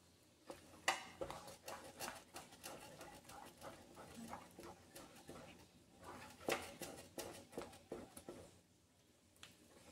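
Wooden spatula stirring thick mashed squash in a stainless steel pot: irregular scrapes and knocks against the metal with soft wet squelches, pausing briefly twice.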